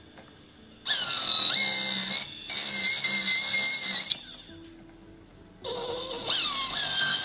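Jeweller's rotary handpiece with a small setting bur, cutting stone seats into a silver wire basket setting: a high whine that rises in pitch as the tool spins up. It runs twice, from about a second in for three seconds, then again after a short pause near the end.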